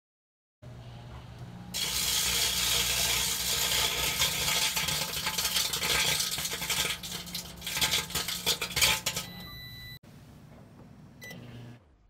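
Sharp Carousel microwave oven humming while compact discs inside arc and spark: loud dense crackling of snaps and pops over the hum, which dies away after about seven seconds. A brief beep-like tone follows, and the hum cuts off just before the end.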